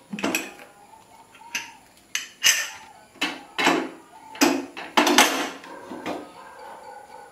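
Aluminium pressure cooker and its lid clanking as the lid is worked open: about ten sharp, irregularly spaced metal knocks, each ringing briefly.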